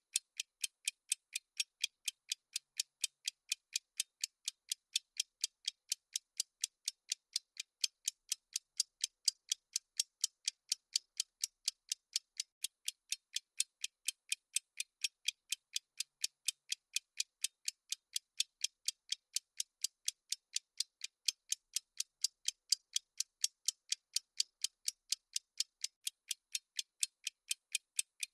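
Clock-ticking sound effect of a countdown timer: short, crisp, evenly spaced ticks, about three a second, keeping a steady pace.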